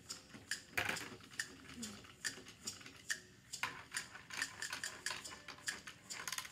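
Small motorized Chubby Puppies toy's gear mechanism clicking in a steady run, about three clicks a second, as it runs on its plastic playset. A louder clatter of plastic sounds about a second in.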